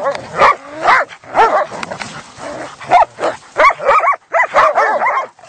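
A pack of hunting dogs, Kazakh tazy sighthounds, yelping and barking excitedly in rapid short calls, several a second, with a brief lull about two seconds in.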